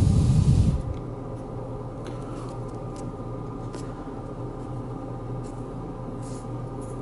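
A loud rush of close rubbing noise with low rumble, dying away within the first second. Then a steady low hum with a few faint light clicks as cardboard model-kit pieces are held and pressed together by hand.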